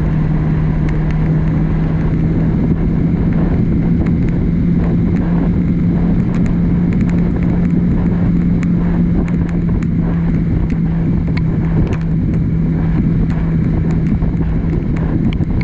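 Kawasaki Ninja 650 parallel-twin engine running at a steady cruise of about 40 to 45 mph, holding one even engine note. Wind rushes over the microphone throughout.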